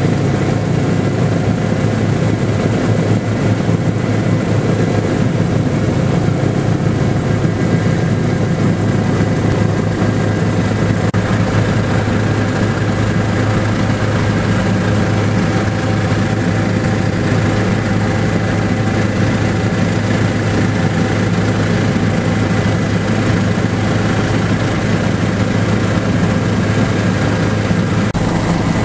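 Bell helicopter in flight heard from inside the cabin: a steady, loud drone of rotor and engine with a thin high whine on top.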